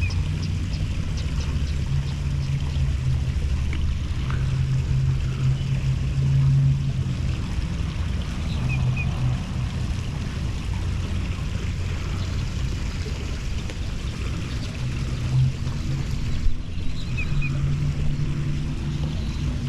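Power washer running, a steady low hum that swells and eases every few seconds.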